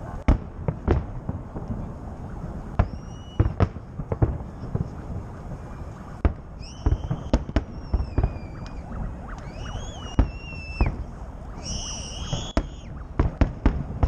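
Fireworks salute going off: a rapid, irregular run of sharp bangs and crackles, with a few high whistles of about a second each laid over them.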